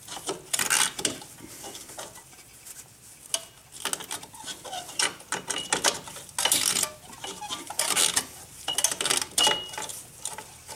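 Repeated bursts of metal clinking and scraping: a hold-down spring tool pushing in and twisting the retainer cup of a rear drum brake shoe's hold-down spring to free it from its pin. It takes a few tries.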